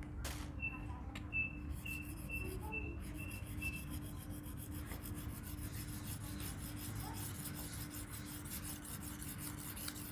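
Steel knife blade, a Pasador knife forged from a Jeep Willys leaf spring, rubbed back and forth on a natural Bogor whetstone in rapid, even strokes.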